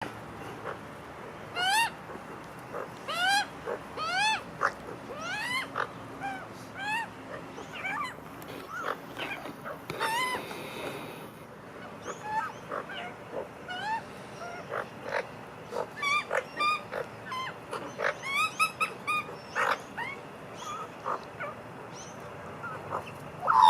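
Australian magpies calling: a run of rising, whiny calls about a second apart, then quicker short chirps and squawks.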